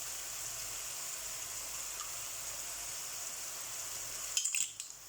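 Cuttlefish frying in a paella pan with the vegetables: a steady sizzle, with a short burst of crackling about four and a half seconds in, after which it turns quieter.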